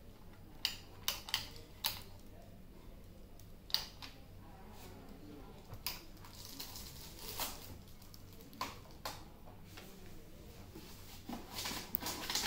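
Handling noise while unpacking a plastic megaphone: a string of sharp clicks and knocks of plastic parts against a table, with some rustling of packaging about halfway through.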